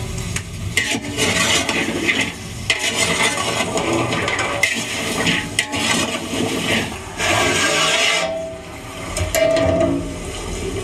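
Chopped okra being stirred and scooped with a metal spoon in a bowl: uneven rustling and scraping with small clicks, in bursts.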